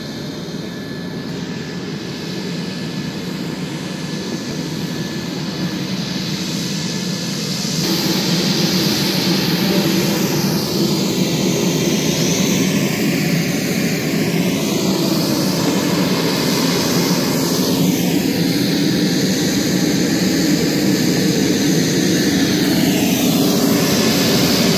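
Twin turboprop engines of a Beechcraft King Air running as the plane taxis on the runway. The steady engine noise grows louder about eight seconds in, and its tone then sweeps slowly up and down as the plane moves.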